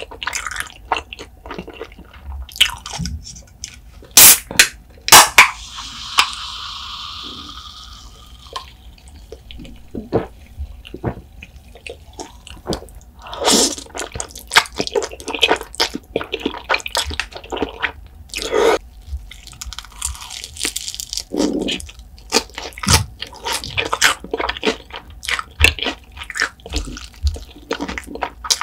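Close-miked eating sounds: wet chewing of creamy spicy ramen noodles with many small sharp clicks and smacks, and a few seconds of steady hissing slurp early on. Near the end comes a crunchy bite into a piece of fried chicken.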